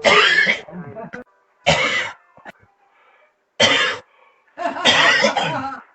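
A person coughing: four loud bursts of coughs with short quiet gaps between, the last one the longest.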